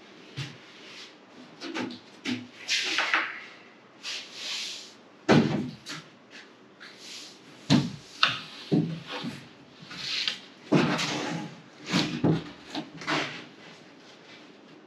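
Plywood camper parts being handled and pushed into place: irregular rubbing and scraping of wood on wood, broken by several sharp knocks.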